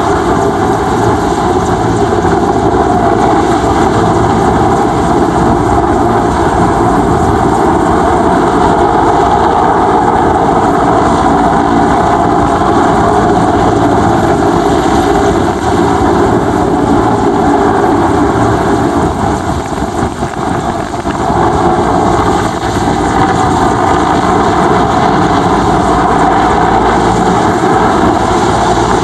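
Mil Mi-8/17-type twin-turbine transport helicopter hovering and manoeuvring low, its turbines and main rotor running loud and steady, with a brief dip in loudness about twenty seconds in.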